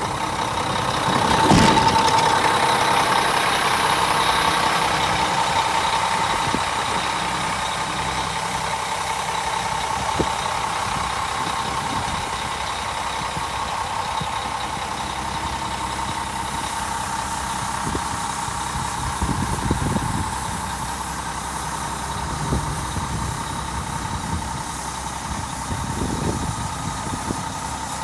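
Diesel engine of a 1998 Mack CH613 tractor truck idling steadily, with a few brief low rumbles over it, the loudest about two seconds in.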